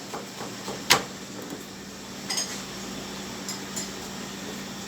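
Butchering work at a cutting table: a sharp knock about a second in, a lighter metallic clink a little later and a few faint ticks, over a steady low hum.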